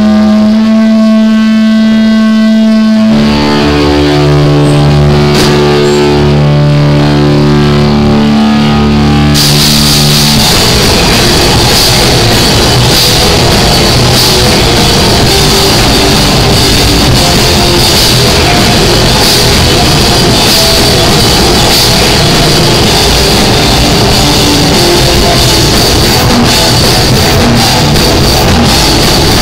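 Live heavy rock band played very loud through the camera's microphone. Electric guitars hold ringing chords, low bass notes join about three seconds in, and cymbals and drums come in around nine to ten seconds as the full band starts playing.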